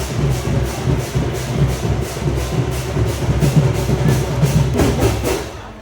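Ghanta badya percussion ensemble playing: metal gongs struck in a steady beat about three times a second over heavy drumming. The playing stops just before the end.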